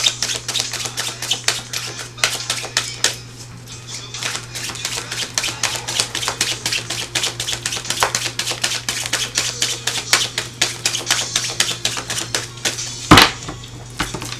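A deck of tarot cards being shuffled by hand: rapid, irregular papery clicks and flicks of cards against each other, with one much louder slap of cards near the end.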